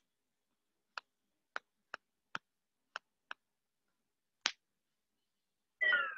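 Stylus tapping on a pen tablet while words are handwritten: about seven short, irregular clicks. Near the end comes a brief, louder sound that falls in pitch.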